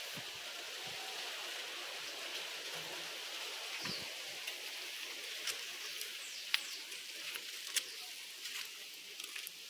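Steady outdoor background hiss with a few faint clicks and short chirps scattered through it.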